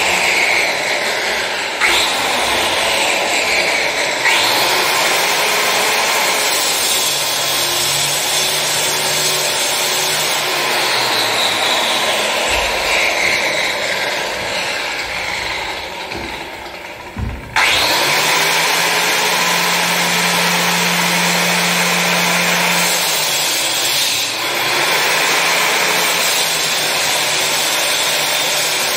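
Electric cutting tool running under load, its note shifting as it bites. It stops for a moment about two-thirds of the way through and starts again.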